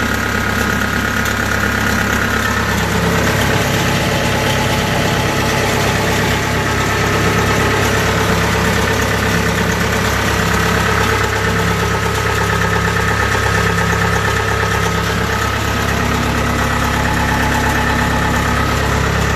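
Diesel engine of a used Kubota DC70 rice combine harvester running steadily at a constant speed, with its belt-driven pulleys turning.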